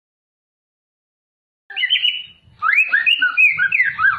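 White-rumped shama singing: quick runs of clear whistled notes that slide up and down, beginning a little under halfway in after a stretch of complete silence.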